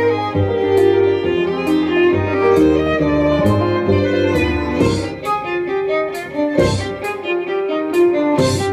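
Violin and double bass playing together: the violin bows a quick melody over a plucked double bass line.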